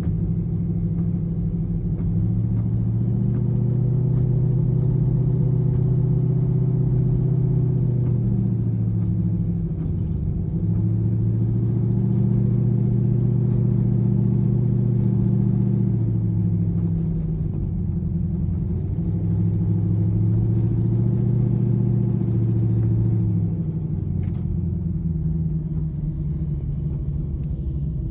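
Drag-race Ford Mustang's engine running at low speed on a warm-up drive. It grows louder in three stretches and eases off between them as the throttle is fed in and let off.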